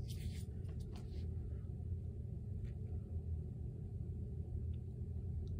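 Steady low hum of room noise, with a few faint ticks and clicks, mostly in the first second or so.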